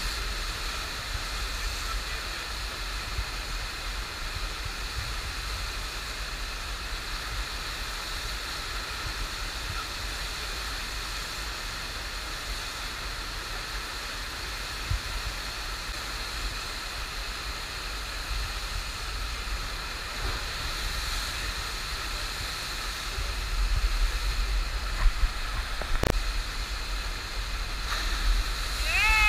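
Steady rushing water of a FlowRider wave machine, a thin sheet of water pumped at speed up the blue ramp. It grows louder and more churning over the last few seconds, with a single sharp knock a few seconds before the end.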